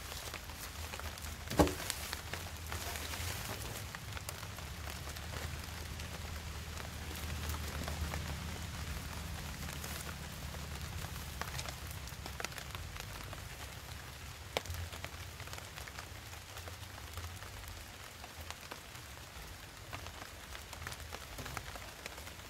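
Steady rain falling on the forest canopy and undergrowth. A single sharp knock comes about a second and a half in, with a few fainter knocks later, as wooden logs are handled.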